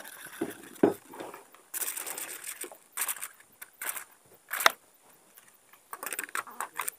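Handling noise: scattered clicks and knocks with short rustling bursts between them. The sharpest knock comes a little past halfway.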